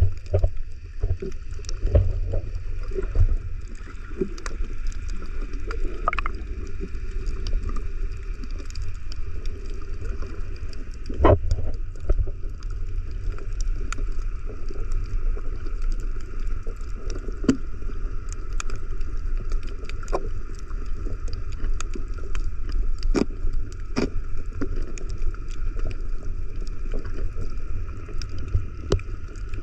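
Water moving around a camera held underwater: a steady low rumble with scattered sharp clicks throughout.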